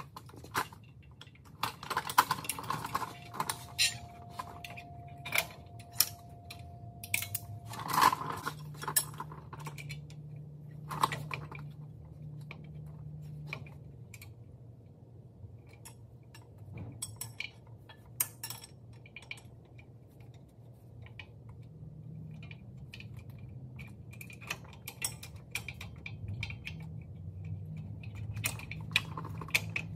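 Metal clinks and clatter of steel drum brake shoes and their return springs being handled and fitted by hand on a truck axle's brake assembly. The clicks come irregularly throughout, over a low steady hum.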